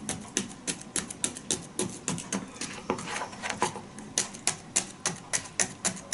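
Kitchen knife rapidly chopping garlic on a ceramic plate: a steady run of sharp taps, about three or four a second.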